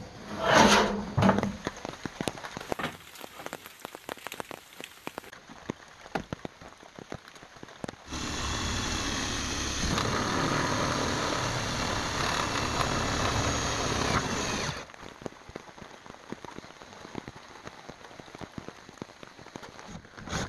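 A cordless drill drives a roofing screw through corrugated steel roofing sheet. It runs steadily for about seven seconds in the middle and stops suddenly. Near the start the sheet metal clatters, and light rain patters throughout.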